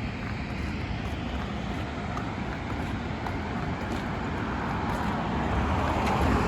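Road traffic noise, with a vehicle growing louder toward the end as it approaches.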